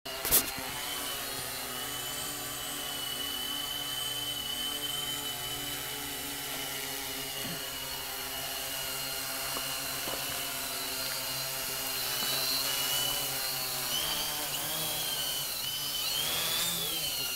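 Hexacopter's six electric motors and propellers running with a steady whine, the pitch wavering up and down over the last few seconds as the throttle changes. A sharp click comes about a third of a second in.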